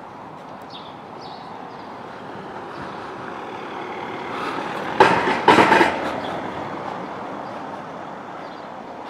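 Street background noise with a motor vehicle passing close by. Its sound swells and peaks sharply, loudest about five seconds in, then fades.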